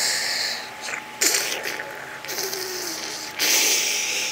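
Rattling, ratchet-like scraping close to the microphone in four short spells with brief gaps between them.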